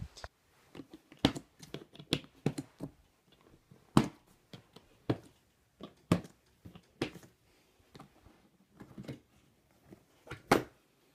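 Scattered sharp clicks and knocks of a black plastic hard rifle case being handled and opened on a bed, with the loudest knocks about four seconds in and near the end.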